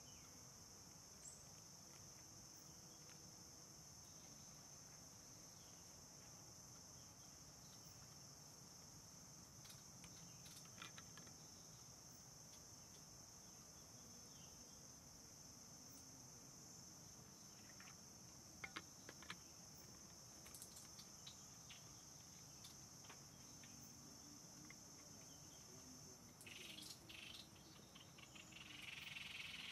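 Faint, steady high-pitched insect chorus, with a few soft clicks. Near the end, a short scraping rustle of a wooden spoon stirring flour batter in a plastic bowl.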